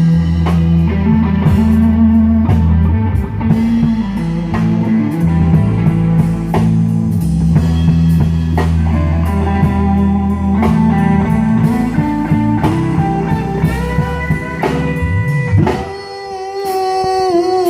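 Instrumental break of a slow country-blues ballad: a guitar plays lead over bass and drums. Near the end the band drops back and the guitar holds a few long, wavering notes.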